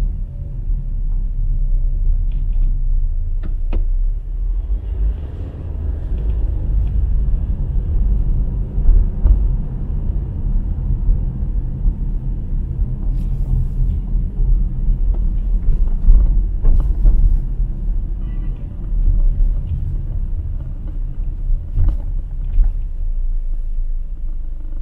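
Low, steady rumble of a car driving on a city street, heard from inside the cabin, with a few faint clicks and knocks.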